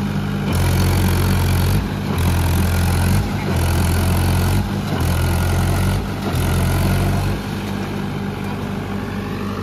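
Mahindra 575 DI tractor diesel engine running hard under load, its note surging and dropping back about every second and a half. About three-quarters of the way through it settles to a steadier, lower running sound.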